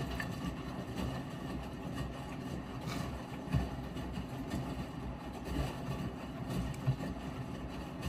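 Miele W5877 front-loading washing machine running mid-cycle: a steady motor hum over a low rumble, with irregular thumps and clicks from the drum, the loudest about halfway through and near the end.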